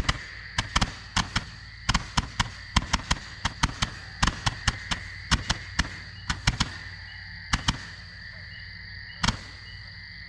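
228-shot Ballistic Barrage firework cake firing, a rapid, irregular string of sharp bangs about two or three a second, thinning out with a gap of over a second near the end. Steady insect trilling sounds underneath.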